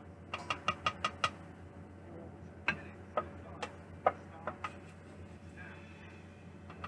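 A utensil clinking against a stainless steel bowl while steamed vegetables are scooped out: a quick run of about six clinks in the first second or so, then single clinks spaced out over the next two seconds. A faint steady hum runs underneath.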